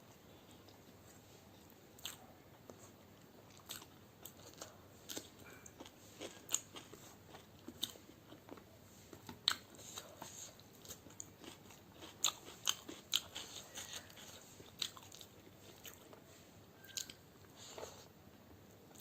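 A person eating egg biryani with raw onion and chilli: crunching bites and chewing, with many sharp crunches, thickest in the middle stretch.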